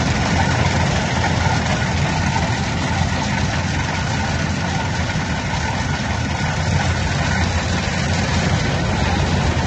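A heavy machine's engine running steadily at an even speed, with no revving or change in load.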